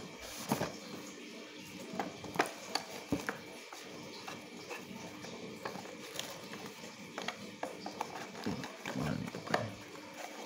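Cardboard packaging being handled as the camera's inner cardboard tray is pulled out of its box: scattered light taps, scrapes and rustles, with a duller bump near the end.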